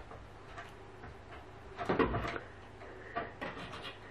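A cat's claws scrabbling and knocking on a wooden glazed door as it climbs. A cluster of scratchy knocks comes about two seconds in, and a run of lighter ticks follows a little after three seconds.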